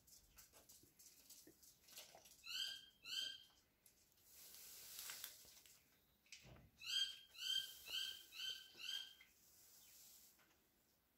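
Short, high chirping calls from a small animal: two a little after two seconds in, then a run of five about half a second apart around the middle, with a soft scratchy rustle between them.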